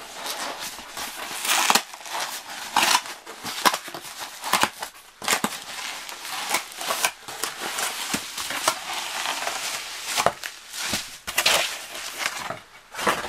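Cardboard shipping box being opened by hand, its flaps scraping and the bubble wrap inside crinkling as bubble-wrapped picture frames are pulled out. Irregular rustling with many sharp crackles.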